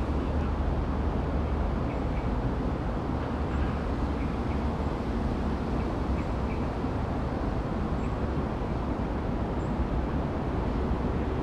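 Steady low outdoor rumble with faint, short bird chirps now and then.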